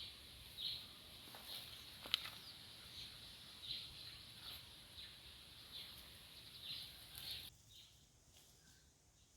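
Faint bird chirps repeating about once a second, with one sharp click about two seconds in; the sound cuts off abruptly near the end, leaving near silence.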